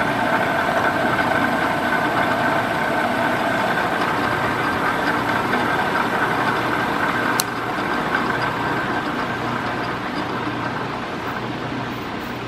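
1998 Heltos VS32B-UL heavy-duty drill press running with a steady whine. It is switched off with a click about seven seconds in, then gradually winds down.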